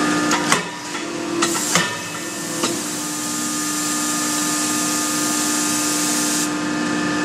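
Forging-line machinery hum with several sharp metallic clanks in the first three seconds as the robot gripper handles the hot forging on the die. A steady hiss follows and stops shortly before the end.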